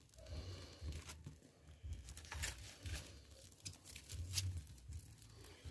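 Faint, irregular crackling from a small fire burning on a homemade fire starter of sawdust soaked in vaseline, gasoline, motor oil and diesel.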